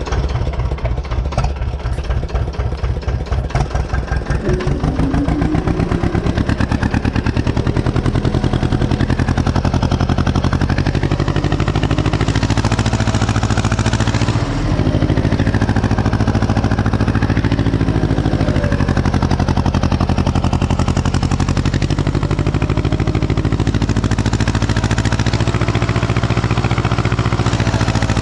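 Ursus C-330M tractor's two-cylinder diesel engine pulling a plough. Its firing beat is slow at first, quickens about four seconds in, and then runs steadily under load.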